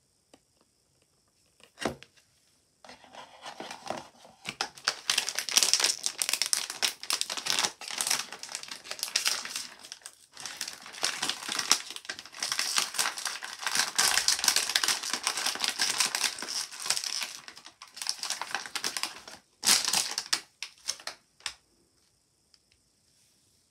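Plastic wrapping crumpled and crinkled by hand, crackling on and off with a few short pauses.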